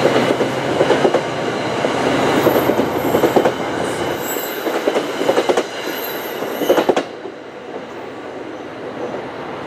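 NJ Transit passenger coaches rolling past close by, their wheels clattering on the rails over a rolling rumble. The last car clears about seven seconds in, and the sound drops to a fainter rumble as the train moves away.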